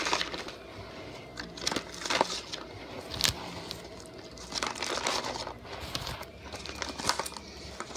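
Small firecrackers (micro dynamites) being packed back into their cardboard box by hand: irregular rustling, crinkling and light clicks of paper and cardboard.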